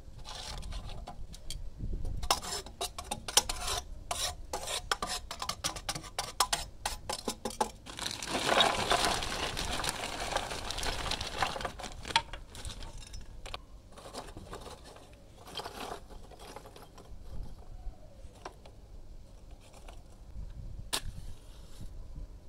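Hard lumps of charcoal and the grill's wire grates clinking and knocking, then a dense rattling clatter for a few seconds as charcoal is poured from a bag into the robata grill's firebox. After that come a few scattered knocks as pieces settle, and a sharp match strike near the end.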